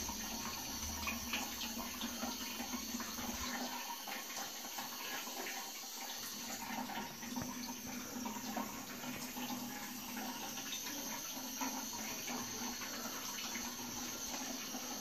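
Water running steadily in a gents' toilet's plumbing, a continuous trickle with faint drips and splashes.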